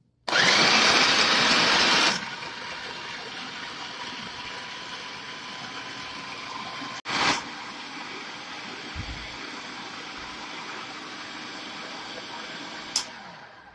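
Electric food processor chopping pieces of white bread into crumbs. It is loud for about the first two seconds as the blade breaks up the bread, then runs as a steadier, quieter whir. About seven seconds in it cuts out briefly and comes back with a short loud burst, and near the end there is a click as it winds down.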